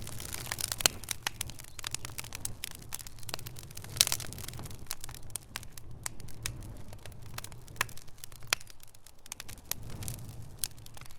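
Fire crackling: irregular sharp pops and snaps, one louder pop about four seconds in, over a low steady rumble.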